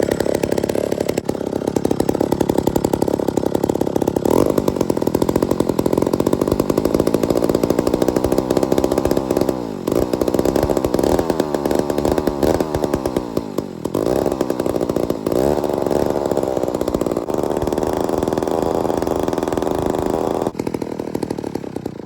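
1959 McCulloch Mac 150 80cc two-stroke chainsaw running after being revived from long storage, its engine speed rising and falling several times. The speed changes come near 4 s, around 10 s, between 12 and 14 s and near 15 s. The saw is loud.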